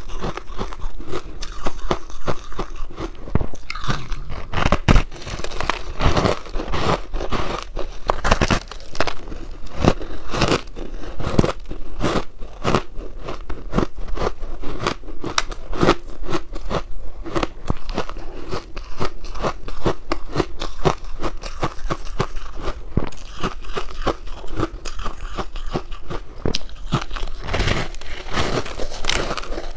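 A chunk of frozen pink ice cake being bitten and chewed: a dense, irregular run of sharp crunches and cracks as the ice breaks between the teeth.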